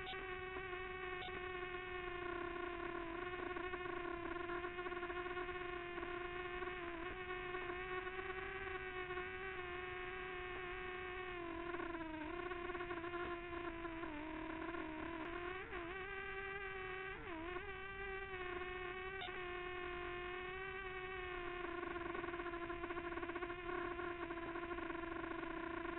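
Quadcopter drone's motors and propellers whining at a steady pitch, with the pitch dipping and wobbling several times in the middle as the rotor speeds change.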